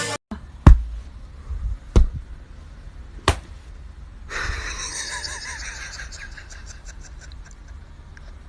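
Three sharp bangs about a second and a quarter apart, the first the loudest, then a steady hiss about halfway through.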